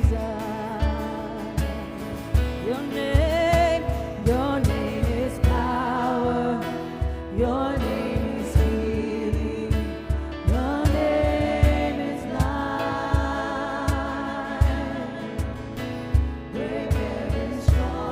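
Worship music: a singer with a wavering, sustained melody over a band, with a steady drum beat.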